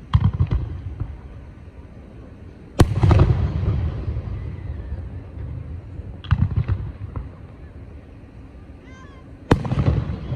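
Aerial fireworks shells bursting: four booms about three seconds apart, each followed by a long rolling rumble, the second the loudest.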